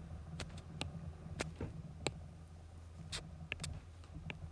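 Irregular light taps of a stylus tip on a tablet's glass screen, about ten sharp clicks spaced unevenly, over a steady low hum.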